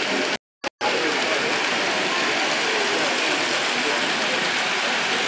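Model trains running on a layout: a steady mechanical rattle and whir of wheels and motors on track, over the general murmur of the hall. The sound cuts out completely for a moment about half a second in, then carries on unchanged.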